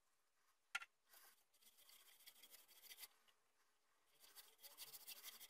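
Faint, scratchy rubbing of a hand working paste wax polish into the rim of a turned chestnut wood plate, in two stretches. A single sharp tap comes just under a second in.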